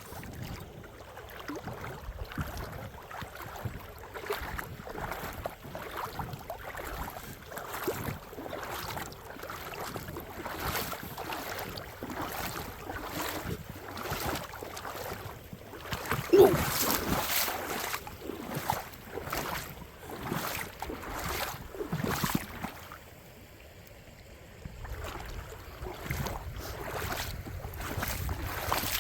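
Steady footsteps of someone walking along a creek bed, one after another at a walking pace. The steps pause for a couple of seconds about two-thirds of the way through, then start again.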